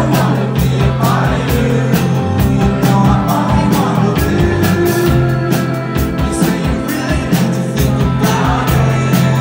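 Indie rock band playing live: electric guitars and bass over drums keeping a quick steady beat, about four hits a second, with a voice singing at times. Loud and dense, as heard from within the crowd.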